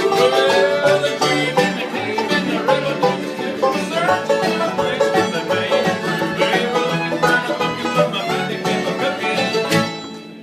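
Instrumental break of a country song: plucked string instruments play a fast run of notes over a steady bass line, with no singing.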